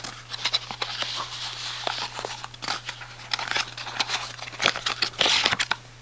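Opening a small cardboard product box by hand and pulling out its packaging: irregular scrapes, rustles and small clicks, with louder sliding rustles about a second in and again near the end.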